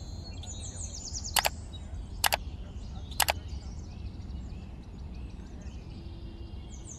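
Outdoor ambience with songbirds calling: a quick descending trill about a second in and again near the end, over a steady low background rumble. Three sharp clicks come at roughly one-second intervals early on and are the loudest sounds.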